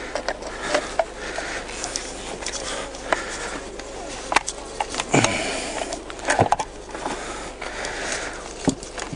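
Hive clips on a Langstroth beehive being fastened to hold the boxes together: a series of sharp clicks and knocks, with the loudest few about halfway through.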